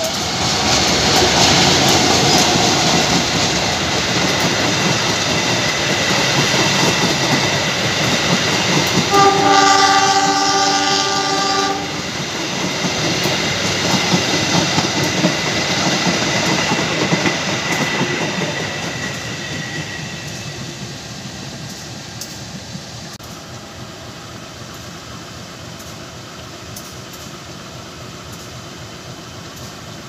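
CC201 diesel-electric locomotive hauling a passenger train through a station without stopping: loud engine, wheel and rail noise as it passes close by, with one multi-tone horn blast lasting about two and a half seconds about nine seconds in. The coaches' rumble then fades away over the last third.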